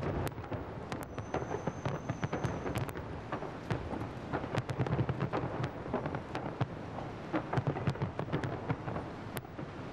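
Fireworks salute: many shells bursting together in a dense run of bangs and crackles over a constant low rumble, heard through a television broadcast.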